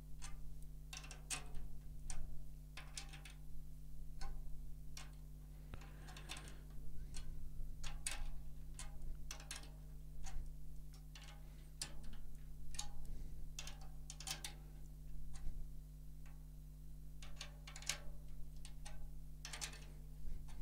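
A drum key turning the tension rods on a snare drum's batter head, giving small irregular clicks and ticks over a low steady hum. The head is being tightened a little at a time to raise its pitch.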